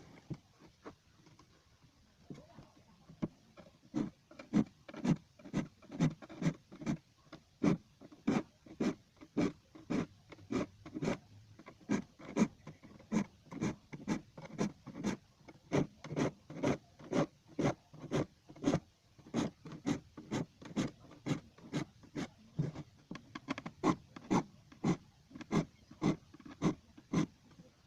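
Hand saw's teeth being sharpened with a file: a steady run of rasping strokes, about two a second, growing louder a few seconds in.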